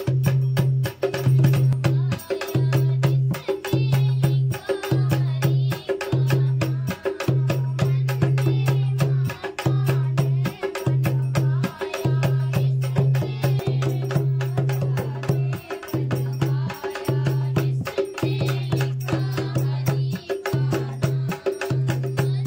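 Dholak played by hand with quick, steady strokes, its bass head ringing in a low tone under the beat, while women sing along.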